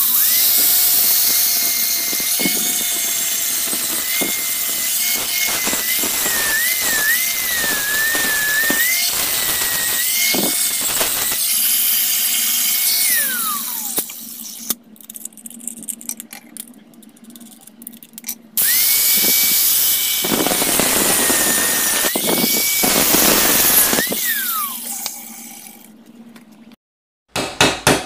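Angle grinder running and grinding metal, its pitch dipping and wavering as it is pressed into the work, then spinning down; after a pause it runs again for about five seconds and spins down a second time. Quick hammer strikes on metal start right at the end.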